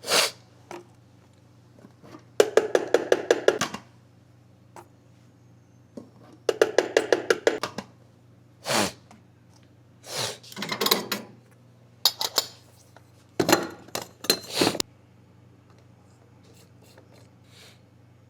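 A man's congested nose sniffing: two quick trains of short sniffs, about eight a second, like a sniffer dog, then several single longer sniffs. The sniffing comes from a nose blocked by rhinitis.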